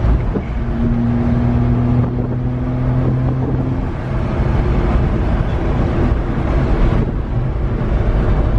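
The 1992 Suzuki Carry kei truck's small three-cylinder engine running as the truck drives, heard from inside the cab with road rumble and some wind. About a second in, the engine hum settles at one steady pitch for a few seconds.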